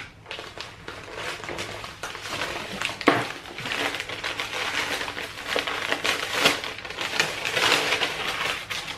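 Packaging and clothing being handled and unwrapped, with irregular rustling and crinkling and a sharp tap about three seconds in.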